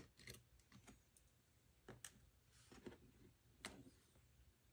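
Near silence broken by a handful of faint, separate clicks and ticks: a small Torx screwdriver working a tiny screw and fingers handling the Mac Mini's logic board and its metal parts.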